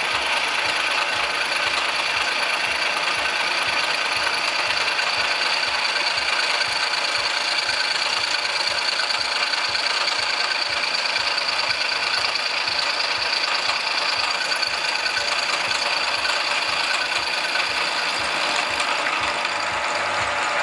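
VM-130 milling machine running steadily, its gear drive whirring with a fast, even rattle while the cutter takes its first chips from metal.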